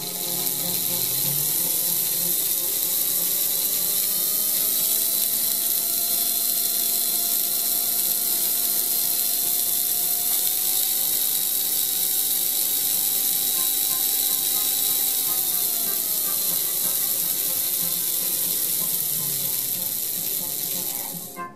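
Märklin 3066 HO-scale diesel locomotive's open-frame electric motor, gears and wheels running on a roller test stand: a steady buzzing whir that starts suddenly, climbs in pitch over the first few seconds, holds, then winds down near the end.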